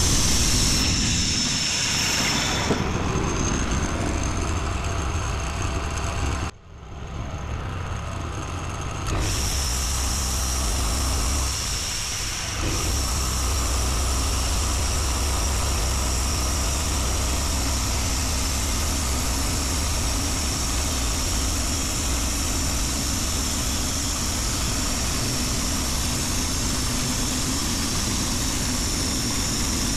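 Portable band sawmill running under load, its engine droning steadily while the blade cuts through an ash log. The sound drops off sharply about six and a half seconds in, returns weaker, then runs steadily again from about nine seconds on.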